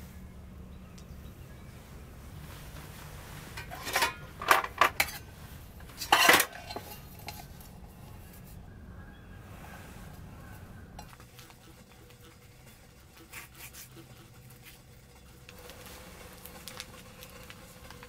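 Camp gear being handled: a quick cluster of sharp clinks and rustles about four to six seconds in as a Snow Peak titanium mug is taken out of a soft cooler, then only faint handling noises.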